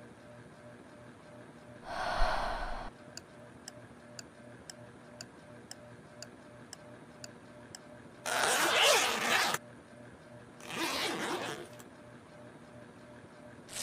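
Two rasping pulls of a zipper on a black bag, each about a second long, in the second half. Before them come a short scuffing thud about two seconds in and a run of soft, even ticks, about two a second.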